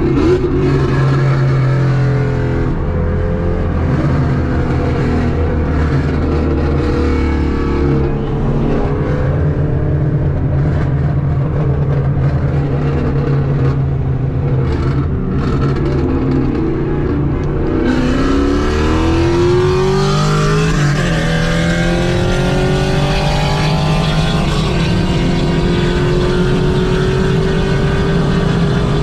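Car engine and road noise at a steady cruise, then about 18 seconds in the engine revs up in rising sweeps as the car accelerates, followed by a slow, steady climb in pitch near the end.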